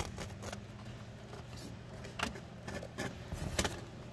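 Scattered clicks and knocks of plastic wire connectors and cables being handled on a circuit board, heaviest in the second half, over a steady low hum.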